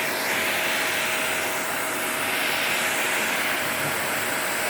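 Vacuum cleaner running steadily with a brush attachment over an air conditioner's mesh filter: a steady rushing of air with a thin, steady motor whine.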